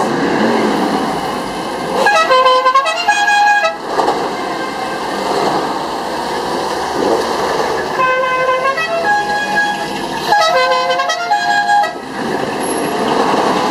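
Car horn sounded in three blasts, the first two about six seconds apart and the third soon after; each blast changes pitch partway through.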